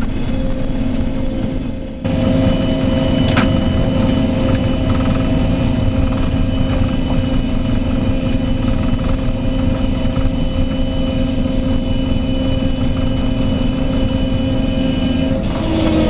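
Heavy vehicle's diesel engine running steadily under way, heard from inside the cab, with a brief dip in level about two seconds in and a single click shortly after.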